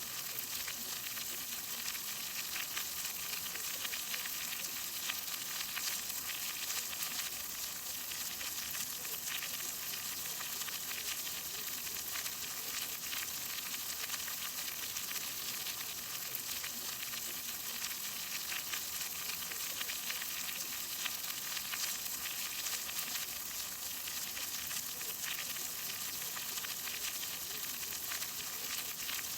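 Steady rain falling, a dense hiss of many small drop impacts that does not change.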